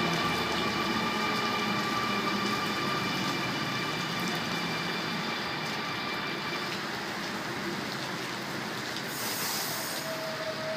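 Electric suburban train (a Sydney Trains Millennium M-set) drawing into the platform and settling to a stop. A steady high whine of several tones runs over an even hiss and fades out about seven seconds in. A brief high hiss follows near the end.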